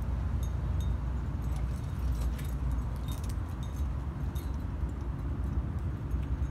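Metal climbing gear clinking: cams and carabiners racked on a harness jingle in small scattered taps as the climber moves onto the rock, over a steady low rumble.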